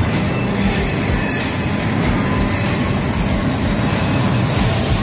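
Double-stack intermodal freight train rolling past, a steady loud rumble and rattle of well-car wheels on the rails.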